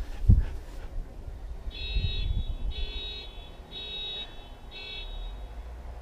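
An electronic beeper sounding four even beeps, about one a second, each about half a second long. A brief low thump just after the start.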